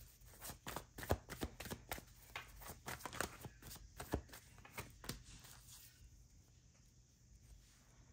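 Tarot deck being shuffled and handled: a quick run of sharp card clicks and slaps for about five seconds, then quieter as a card is laid on the table.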